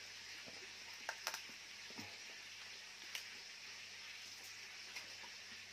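A few faint clicks and crackles of cooked lobster shell being peeled apart by hand, over a steady background hiss.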